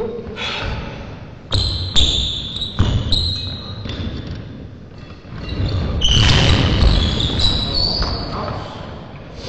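Badminton play echoing in a sports hall: sharp racket strikes on the shuttlecock and shoes squeaking and thudding on the court floor, busiest from about six seconds in.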